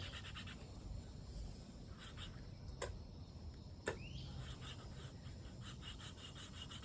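Wooden hand-drill spindle spun between the palms in a fireboard notch: a faint, quick, rhythmic wood-on-wood rubbing that thins out in the middle and picks up again near the end, with two sharp clicks about a second apart midway. The board and spindle are heating up, already giving off smoke, on the way to an ember.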